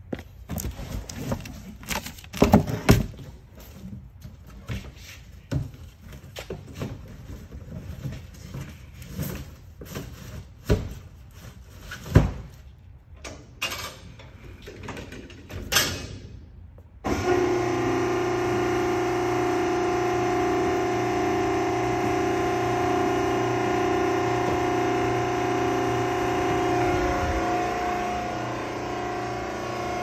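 Scattered knocks and clunks around a vertical cardboard baler, then, from a sudden cut about halfway through, a steady droning hum of a forklift running.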